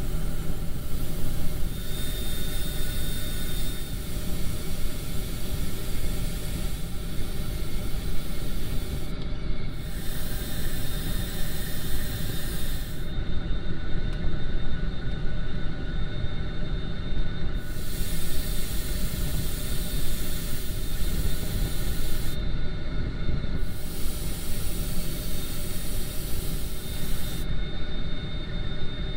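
Airbrush spraying paint with a steady hiss, stopping and starting again four times, over a constant low machine drone.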